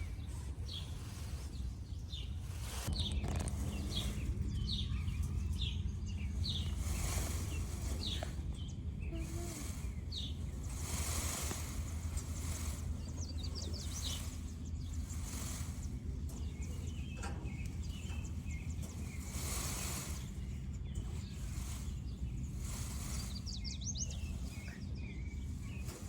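Peacock shaking its raised train feathers: a dry rustling shiver that comes in bursts of about a second each. Small birds chirp repeatedly in the background over a steady low rumble.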